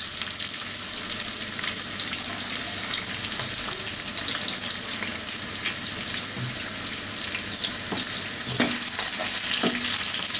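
Sliced onion sizzling as it fries in hot oil in a kadai, a steady crackling hiss. A couple of sharper knocks come near the end.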